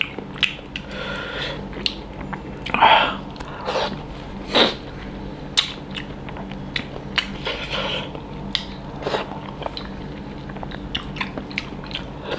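Close-miked eating sounds from a man chewing and biting food: irregular wet mouth clicks, smacks and short chewing bursts. A low steady hum runs underneath.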